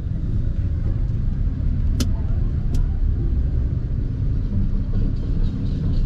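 Steady low rumble of a vehicle on the move, with two short sharp clicks about two seconds in and again under a second later.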